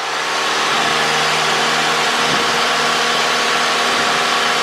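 Light single-engine airplane's engine and propeller running steadily at high power, swelling in loudness over the first second and then holding even.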